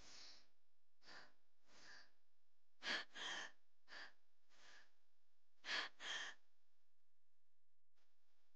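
A woman breathing hard with strain, a ragged run of short breaths in and out, loudest in two pairs of sharp gasps about three and six seconds in.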